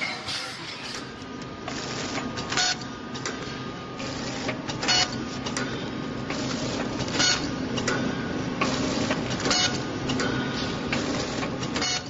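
Automatic snack packing machine running, a steady mechanical hum with a regular sharp clack about every two and a half seconds.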